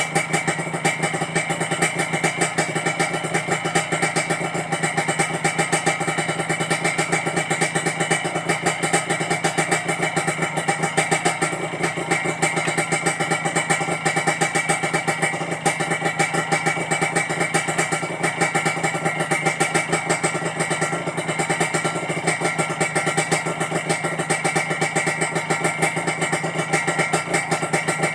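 Kawasaki Ninja R 150 single-cylinder two-stroke engine idling steadily while it warms up, with a crisp, jingling metallic ring to its note.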